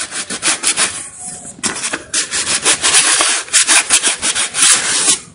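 A desktop RAM module's contact edge being rubbed briskly back and forth against paper: rapid dry scrubbing strokes, with a short pause about a second in. The memory contacts are being cleaned, a usual fix for a PC that powers on but gives no display.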